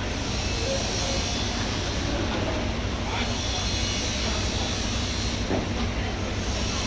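Steady low rumble and hiss of machinery-like background noise in a large hall, with faint voices.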